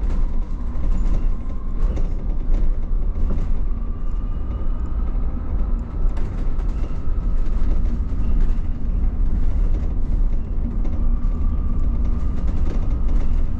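Interior of an Optare MetroDecker EV electric double-decker bus in motion: a steady low rumble from the ride and road, with a faint whine that drifts up and down in pitch and light rattles of the body.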